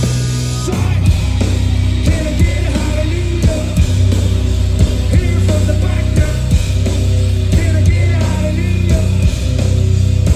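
Live punk rock band playing loud through a large stage PA: heavy bass, guitar and a steady run of hard drum hits.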